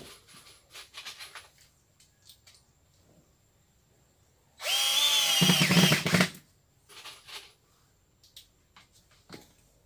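Cordless drill-driver driving a screw into a woven rubber tyre strip, the motor running once for just under two seconds about halfway through, its pitch shifting just before it stops. Faint clicks and rustles of the rubber strips being handled before and after.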